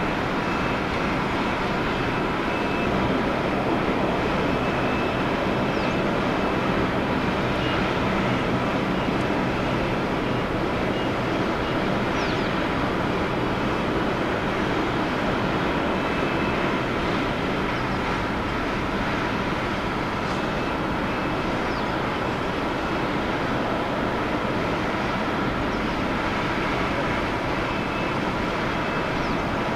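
Jet airliner engines running steadily: an even rushing noise with a few thin, high whining tones held over it, at a constant level.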